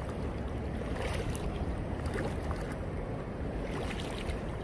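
Wading through shallow seawater: water swishing and splashing around the legs in short, irregular strokes, over a steady rumble of wind on the microphone.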